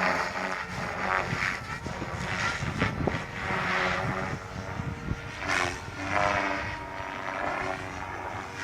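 Electric RC helicopter, a Goblin 700 Competition with a three-blade main rotor, flying: rotor and motor whine and buzz, the pitch rising and falling several times as it manoeuvres.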